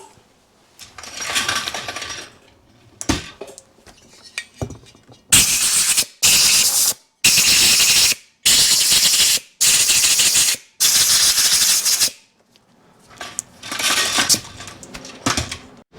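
Six short, sharp-edged hissing blasts from a pressurised jet, cleaning chips out of freshly tapped cylinder head-stud holes, with a few clicks of metal parts being handled before and after.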